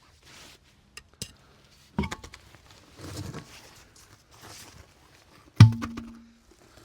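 Metal clanks and knocks from hand tools and wheel parts being handled during a wheel change done by hand, with rustling and shuffling between. The loudest, about five and a half seconds in, is a metal clank that rings briefly.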